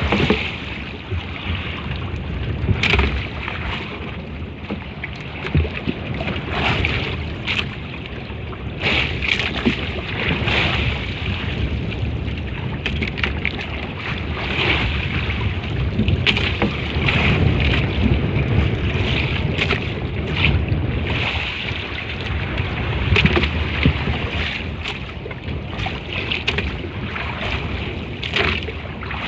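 Wind buffeting the microphone at sea, with water splashing and sloshing against a small boat at irregular moments.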